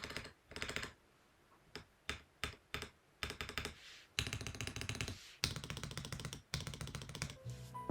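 Feker Alice80 mechanical keyboard with its stock switches being typed on in quick runs of keystrokes. A short pause about a second in, broken by a few single keystrokes, before fast typing resumes.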